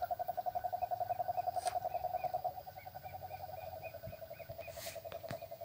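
Night chorus of calling animals: a steady, rapidly pulsing low trill, joined from about a second in by a faint run of short higher chirps, about four a second.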